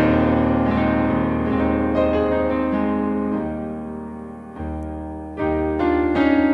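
Background piano music: slow, sustained chords that change every second or so, with a quieter passage just before a new chord about five seconds in.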